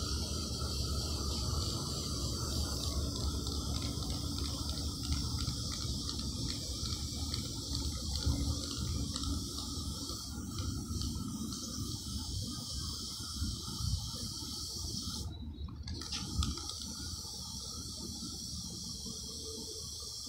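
Aerosol spray-paint can hissing steadily as paint is sprayed onto a canvas, cutting off about fifteen seconds in and starting again a moment later, over a low rumble.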